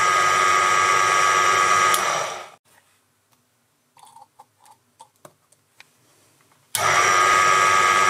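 Proxxon PD 250/e lathe running while a high-speed steel twist drill bores into 316 stainless steel, a steady whine. It stops about two and a half seconds in, leaving only a few faint clicks during a pause to add cutting oil, then the lathe and drilling start up again near the end.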